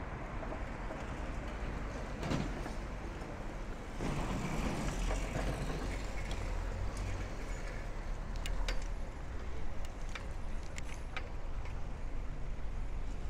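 City street traffic heard from a moving bicycle: a steady rumble of road vehicles with a couple of louder passes, and a few sharp clicks in the second half.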